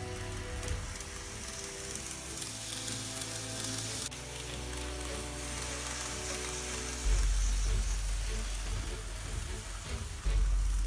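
Background music with sustained chords over a steady hiss. The bass gets louder about seven seconds in.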